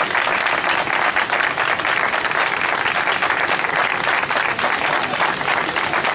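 Spectators applauding: steady, dense hand clapping from a crowd.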